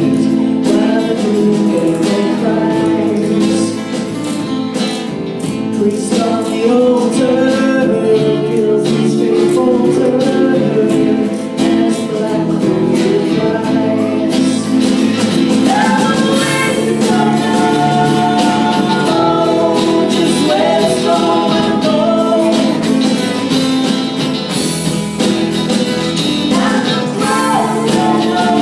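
Live band playing a song, with strummed guitar and singing.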